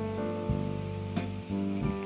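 Background music with plucked notes, a new note starting about every half second over sustained tones.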